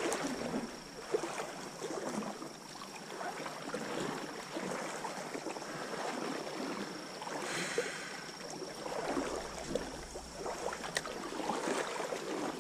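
Legs in waders pushing through knee-to-thigh-deep creek water, the water sloshing and swirling in uneven swells with each stride.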